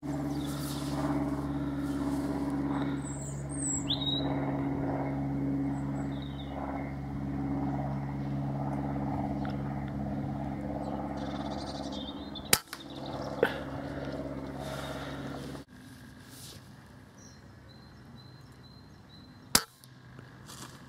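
Two shots from a Weihrauch HW100 .22 PCP air rifle, each a short sharp crack, about seven seconds apart. Under a second after the first shot comes another sharp knock. A steady hum with a few bird chirps sits under the first shot and stops suddenly before the second.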